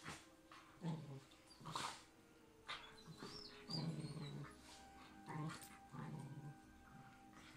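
Two dogs play-wrestling, growling at each other in short repeated bursts, with a brief high whine about three seconds in.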